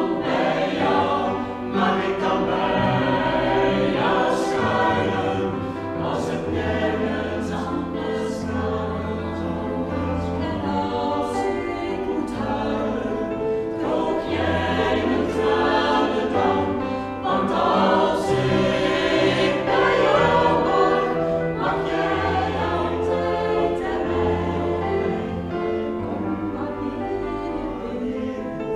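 Mixed vocal group of eight, men and women, singing a song in several parts, with a low bass line beneath the upper voices.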